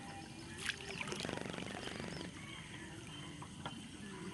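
Water dripping and trickling as hands pull a fish from a gill net in shallow paddy water. There is a sharp click just under a second in, and about a second later a short, rapid buzzing rattle.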